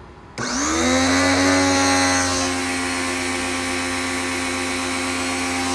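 An electric pressure washer motor and pump switch on about half a second in, run up to speed and settle into a steady whine. Water mist hisses from a row of spray nozzles, and the sound drops slightly about two seconds in.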